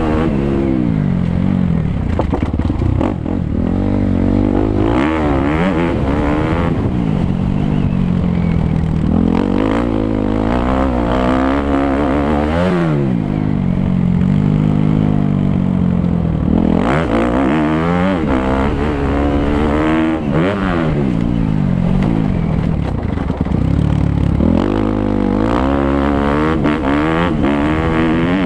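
Suzuki 250 motocross bike's engine being ridden hard, its pitch climbing and dropping every few seconds as the throttle is opened and shut.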